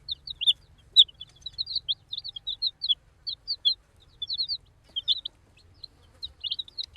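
Baby chicks peeping: many short, high chirps, several a second, from a group of chicks.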